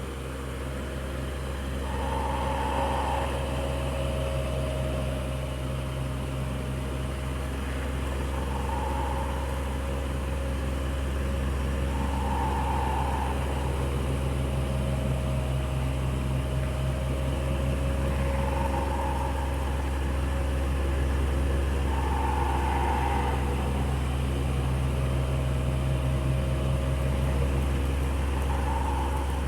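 Electric fan running steadily: a low motor hum under a soft rush of air, with a faint higher tone that swells and fades every few seconds.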